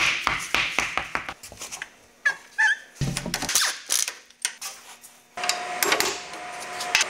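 Metal clanks and short knocks of hand tools and parts during a teardown of a Jeep's front axle and steering knuckle, with hammer blows on the knuckle near the end over a steady hum.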